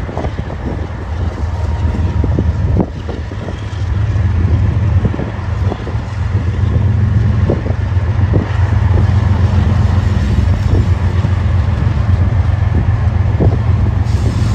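Diesel-electric freight locomotives, led by a GE ES44AC, running as they approach, a steady low engine drone that grows louder from about four seconds in, with scattered short knocks.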